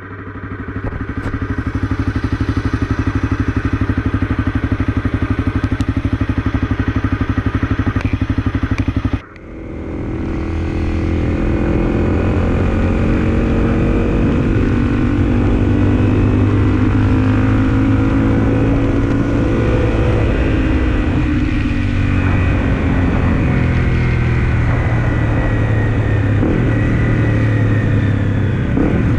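Honda CRF250L's single-cylinder four-stroke engine running steadily at idle. About nine seconds in the sound cuts, and then the bike is being ridden, its engine note slowly rising and falling with the revs.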